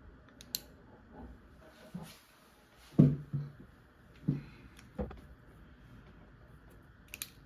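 Faint handling noises on a workbench: a few soft, short knocks as small objects such as a cartridge case and pencil are picked up and set down on paper, and a brief sharp click near the end.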